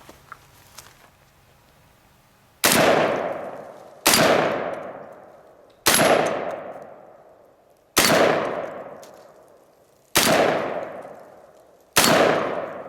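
Six shots from an MKA 1919 semi-automatic 12-gauge shotgun, fired one after another about one and a half to two seconds apart, each ringing out and fading away.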